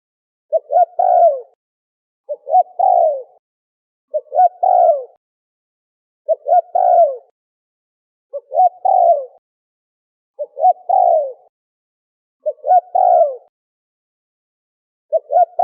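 Spotted dove cooing: a repeated phrase of two or three short coos running into a longer falling coo, given about once every two seconds, eight times.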